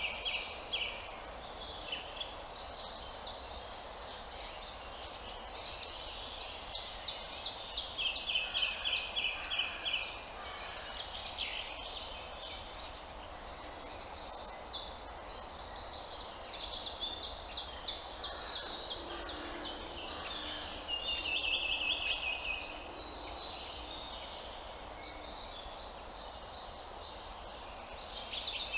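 Several songbirds singing in woodland, overlapping rapid trills and chattering phrases coming one after another, over a steady background rush.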